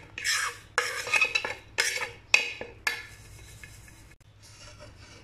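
Scrapes and clinks of a ceramic plate and utensil as dry ground spices are scraped off the plate into a glass blender jar. The sounds come as about six short strokes and thin out after about three seconds.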